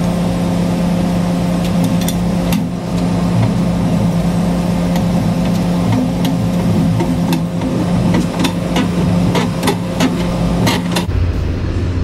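Diesel engine of a Volvo semi truck idling steadily beside a hopper-bottom trailer, with a string of sharp metallic clicks and rattles as the hopper gate is cranked open by hand.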